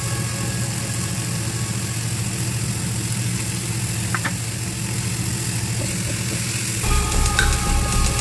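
Background music with a sustained low drone and held tones; a pulsing bass comes in near the end.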